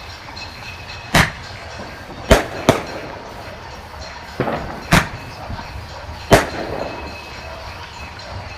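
Klasek Dum Bum 8-shot roman candle firing its titanium salute shots: six sharp bangs, one weaker, at uneven intervals, two of them only about a third of a second apart. The uneven timing is the candle's poor rhythm.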